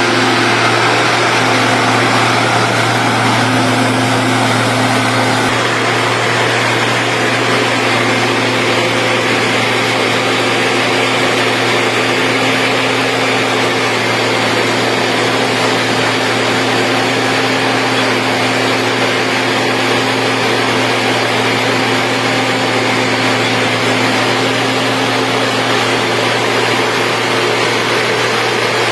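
Engine of a road-construction machine running steadily under load, with a constant low hum and a few steady higher tones.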